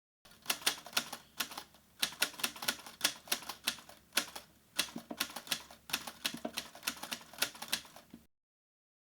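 Typewriter typing: a fast, irregular run of sharp key clicks, several a second, that starts just after the beginning and stops abruptly about a second before the end.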